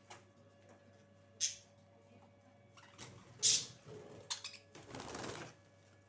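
Caged budgerigars fluttering and moving about: four short rustling bursts, the loudest about three and a half seconds in and the longest near the end.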